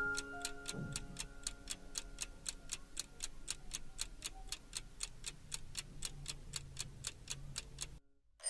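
Clock-ticking sound effect for a countdown timer: even, sharp ticks at about four a second that stop abruptly near the end. The last piano notes of the background music fade out at the start.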